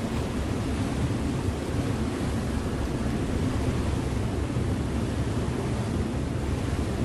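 River motor ship under way: its engine gives a steady low drone with a rushing hiss laid over it, the level unchanging throughout.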